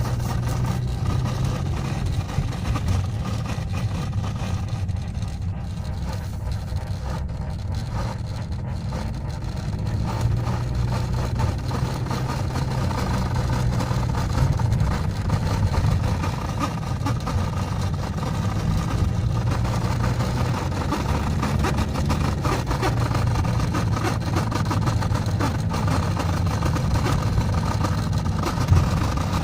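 Speedometer cable of a 1998 Toyota Corolla AE110 humming: a continuous low drone that swells and shifts slightly in pitch, heard together with the car's running noise.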